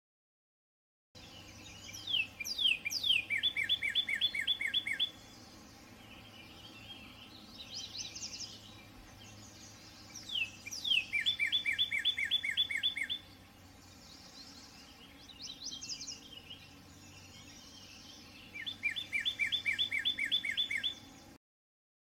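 Northern cardinal singing: three phrases about eight seconds apart, each a couple of down-slurred whistles followed by a quick run of about eight repeated notes, with softer, higher chips in between.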